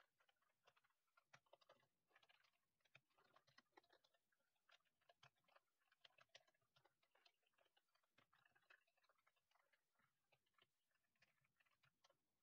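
Near silence with faint, irregular clicks of a computer keyboard being typed on.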